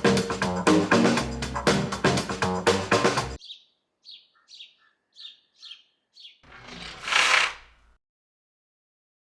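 Background music with drums and guitar that cuts off about three seconds in, followed by a quick run of about seven short bird chirps. A brief whoosh then swells and fades.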